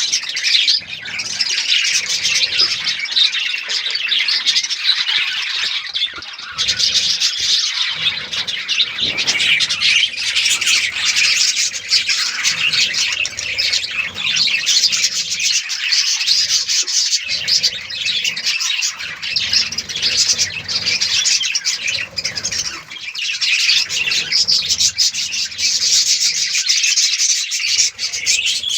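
A colony of budgerigars chirping and chattering together, many birds calling over one another in a dense, continuous warble with occasional squawks.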